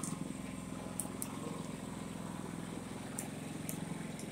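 Pulsar G450RN inverter generator running steadily with no load in economy mode, its engine turning slowly and quietly. A few short high ticks come through over the hum.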